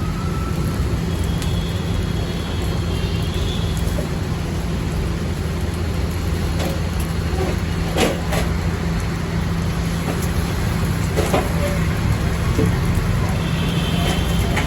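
Busy street traffic: a steady low engine rumble from passing vehicles, with a few short knocks about eight and eleven seconds in.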